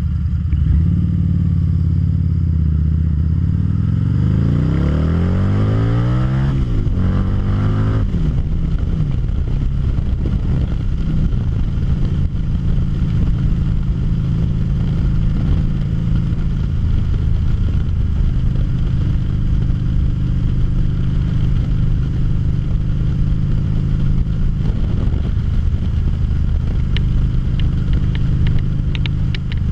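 2013 Harley-Davidson V-Rod Muscle's liquid-cooled V-twin pulling away from a stop. About four seconds in the engine note rises steeply, breaking twice for upshifts, then it settles into a steady drone with wind rush at cruising speed.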